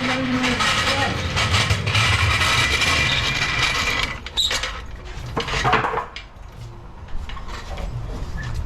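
Metal tools and jacking gear clattering and clanking during work on a car. It is dense and busy for about four seconds, then a few separate knocks, then it quiets down.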